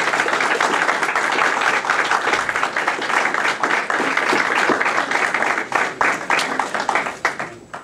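Audience applauding, many hands clapping together; the applause thins to a few scattered claps near the end and stops.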